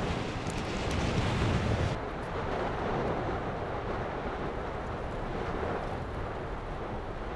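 Steady rushing noise of an erupting lava fissure mixed with wind on the microphone. About two seconds in the sound changes abruptly to a duller, darker rush.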